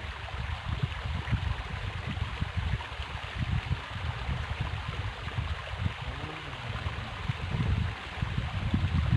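Steady rush of flowing river water, with irregular low rumbles underneath.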